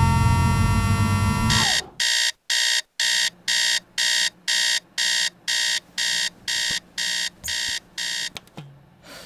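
Electronic alarm clock beeping, about two high beeps a second, a dozen or so in a row before it stops. It is preceded by a loud sustained sound with a slowly rising tone that cuts off abruptly, and a short knock comes near the end.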